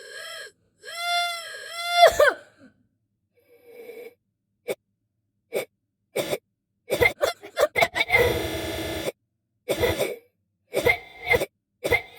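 A person's voice making a series of coughing and hacking sounds: a drawn-out, pitched "eaugh" gagging sound in three pulses at the start, then scattered short coughs and a long rasping hack in the middle, with a few more coughs near the end.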